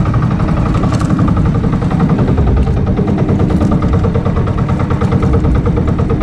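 Engine of a motorized outrigger banca running steadily under way, a loud, even, rapid chugging.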